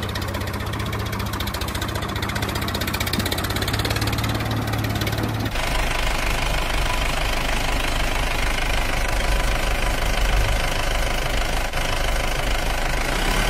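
A heavy vehicle engine sound, running steadily with a fast knocking rhythm. About five and a half seconds in it cuts abruptly to a deeper engine note.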